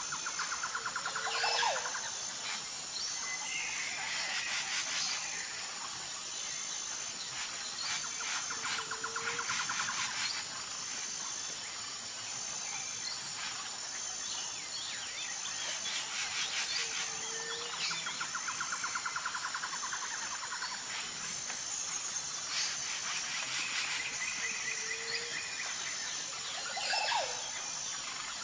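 Outdoor nature ambience: birds calling and trilling over a steady chorus of insects. The same set of bird calls comes back about every eight seconds, as in a looped recording.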